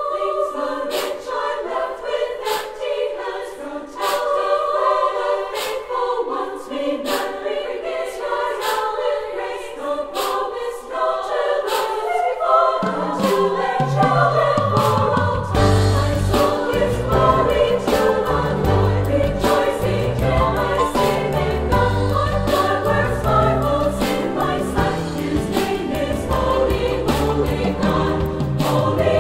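Choral music, a choir singing a Marian hymn. Only higher parts sing at first, and deep low parts come in about halfway through.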